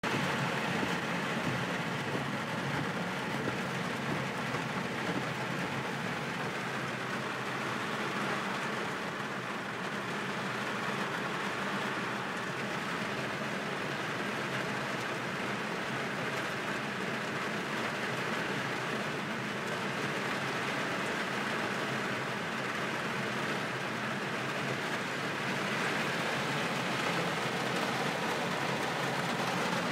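Car driving in the rain: steady noise of tyres on a wet road and rain on the car, a little louder near the end.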